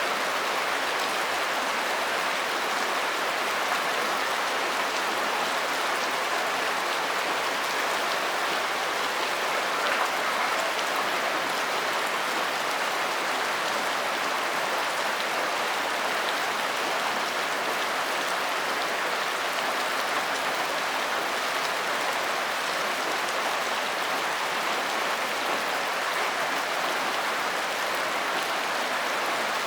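Steady rain falling, an even hiss of drops that holds the same strength throughout, with a few single drops ticking through it.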